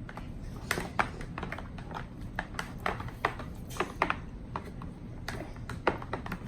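Irregular clicking and tapping, a few knocks a second: a utensil knocking and scraping against a bowl as a slime mixture of glue, shaving cream and paint is stirred.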